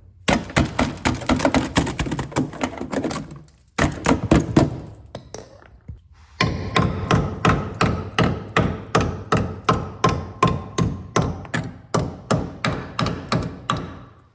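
Claw hammer striking the rusted steel frame rail of a 1980 Toyota pickup over and over to test for rot. First comes a quick flurry of blows; after a short pause comes a steady run of about three or four strikes a second, each with a slight metallic ring. The frame rail here is sound: pretty solid.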